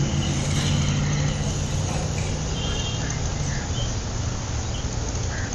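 Cotton candy machine running, its spinning head giving a steady low hum over street noise.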